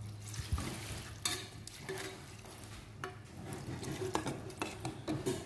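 Water poured into a hot pot of chicken adobo sauce, hissing and sizzling, while a metal ladle scrapes and clinks against the pot as it is stirred.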